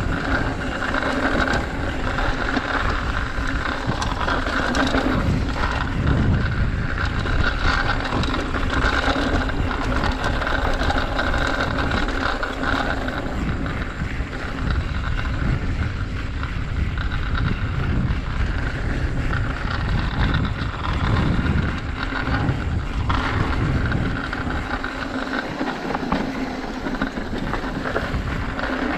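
Mountain bike ridden down a dirt trail, with steady wind rushing over the action camera's microphone, tyre noise on the dirt and constant light rattling of the bike over rough ground.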